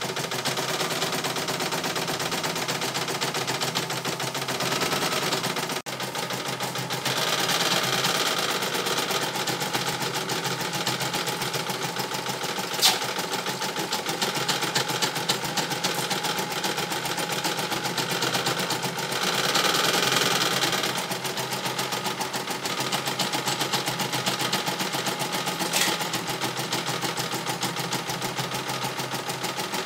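CNY E900 computerized embroidery machine stitching out a design: a fast, even needle rattle with the hoop carriage shifting. It gets louder for a couple of seconds twice, and one sharp click sounds about halfway through.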